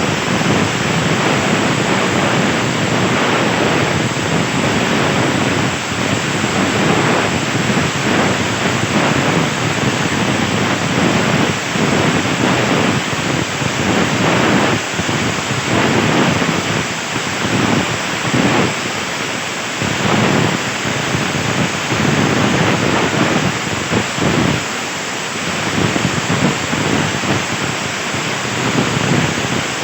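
CNC plasma torch cutting 1.5 mm steel sheet: a loud, steady rushing hiss with a rough crackle, dipping briefly a couple of times.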